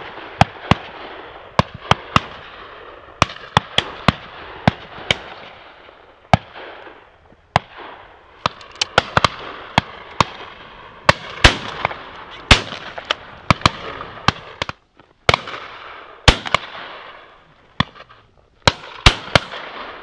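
Shotguns firing in rapid, overlapping volleys from a line of guns at driven partridge and pheasant: dozens of sharp reports, some close and very loud, others fainter from guns further down the line, with only brief lulls.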